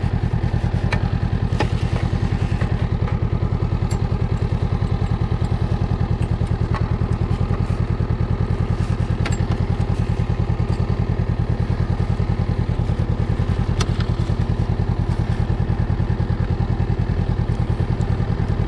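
Honda CB500X's parallel-twin engine idling steadily at standstill, with an even low pulse, and a few light clicks over it.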